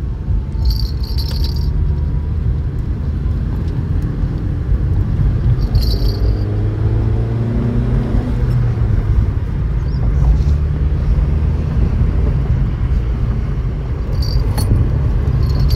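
Steady low rumble of road and engine noise heard inside the cabin of a moving car, with a few brief jingling rattles, about a second in, around six seconds in and near the end.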